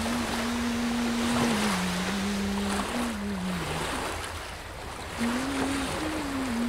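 Waves breaking on a shore, under a slow melody of long held low notes that steps up and down, pausing for about a second near the middle.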